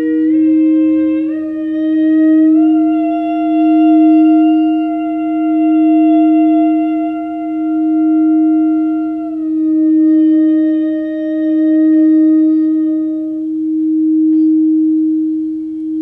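A frosted crystal singing bowl sung by rubbing a mallet around its rim, holding one steady low note that swells and fades about every two seconds. Over it a voice tones long sustained notes, stepping up in pitch at the start, dropping lower about nine seconds in and stopping a few seconds before the end.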